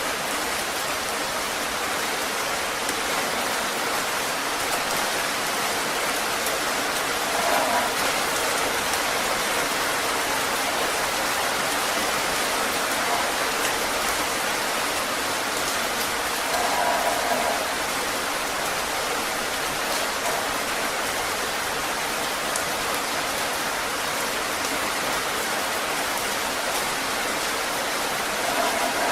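Heavy rain falling steadily, a dense even hiss, with a few brief swells in loudness.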